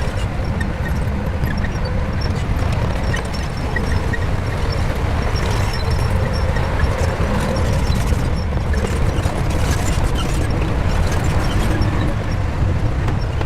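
Shantui bulldozer's diesel engine running steadily, a dense low rumble with faint scattered ticks above it.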